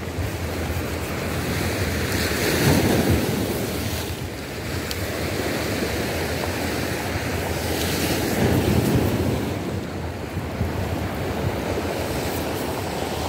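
Choppy sea waves washing against a rocky shore, with wind buffeting the microphone; the wash swells a little about two to three seconds in and again near eight seconds.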